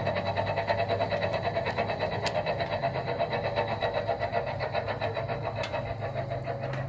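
Ford FG Falcon XR6 Turbo's turbocharged inline-six engine running steadily with an even, pulsing mechanical note and a few faint ticks.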